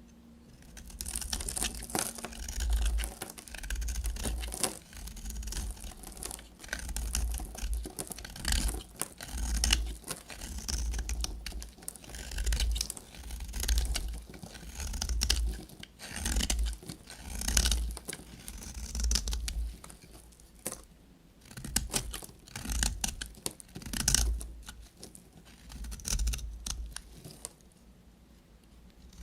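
Knife cutting through soap in a series of crunchy strokes, about one a second, each with a low thump. The strokes pause near the end.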